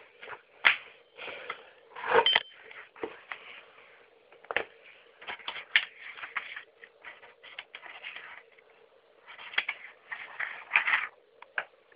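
Cardboard box and packing being opened and handled: irregular scrapes, clicks and rustles of cardboard and paper.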